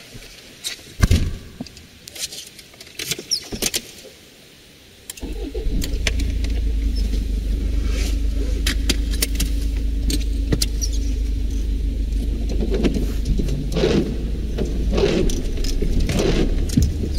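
Heard from inside the car cabin: a few scattered clicks, then about five seconds in the car's engine starts suddenly and runs at a steady idle hum. Near the end the windscreen wipers start sweeping, about one stroke a second.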